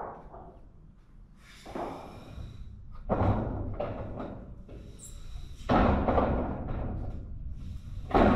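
A thin 0.5 mm corrugated steel roofing sheet flexing and clattering as it is pulled up and laid onto the roof, in several noisy surges with sudden starts, the strongest about three, six and eight seconds in.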